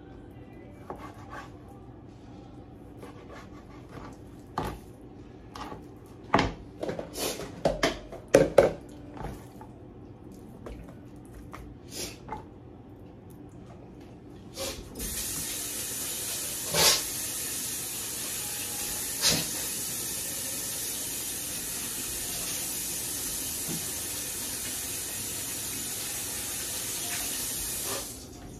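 Chef's knife chopping raw chicken on a plastic cutting board: scattered sharp clicks and clatter, loudest about six to nine seconds in. Then a kitchen sink tap runs steadily for about thirteen seconds, with a couple of knocks under the running water, and is shut off near the end.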